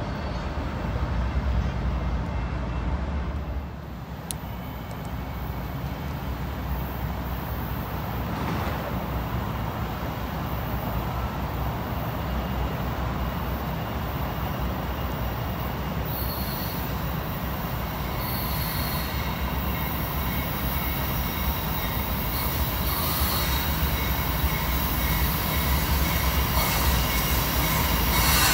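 BNSF diesel-led freight train approaching on a curve, its rumble growing louder toward the end. High-pitched wheel flange squeal sets in about halfway through. At first another train's rumble dies away, about four seconds in.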